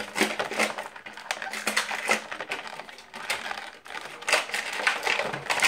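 Clear plastic blister packaging crackling and clicking irregularly as a collectible figure and its base are worked out of it.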